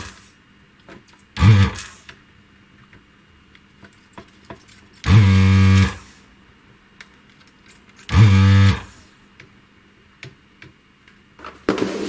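Vacuum desoldering gun's pump buzzing in three short bursts, each a second or less, as it sucks molten solder out of a dry solder joint on the circuit board. Clattery clicks near the end.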